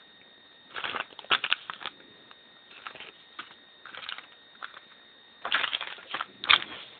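Plastic lure packages being handled and moved around, crinkling and clicking in several short bursts, the loudest cluster near the end.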